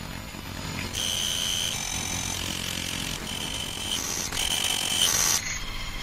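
Distorted, glitchy electronic alert tones over hiss and a low hum. About a second in, a high beeping tone starts that jumps between two pitches in pieces of about half a second. Near the end it gives way to a buzzy chord of several steady tones.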